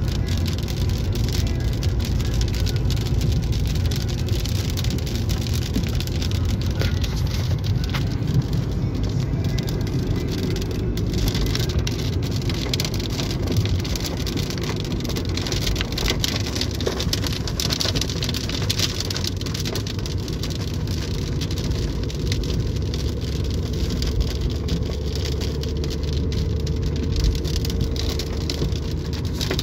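Rain falling on a car's roof and window glass as dense small ticks, over a steady low rumble from the car.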